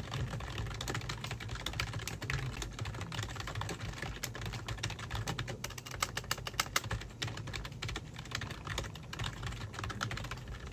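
Steady, fast typing on a computer keyboard: a dense run of key clicks.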